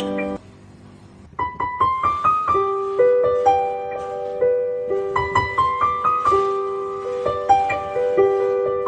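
Background piano music, a gentle melody of single struck notes. It drops out for about a second near the start, then picks up again.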